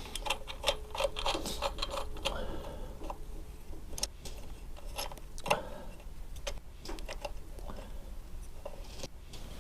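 Irregular light metal clicks and clinks of hand tools and fittings while exhaust mounting hardware is fitted and adjusted on a scooter, with a faint ringing tone in the first couple of seconds.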